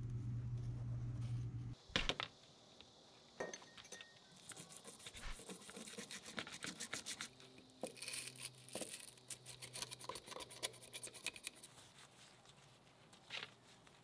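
A steady low hum cuts off about two seconds in. Then a stiff brush scrubs cosmoline off an SKS rifle's trigger group over a plastic tray, in runs of quick scratchy strokes with a few clicks and knocks of the part and tray.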